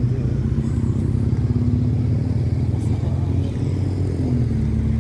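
A motor engine running with a low, steady rumble and a fast, even pulse, easing off just after the end.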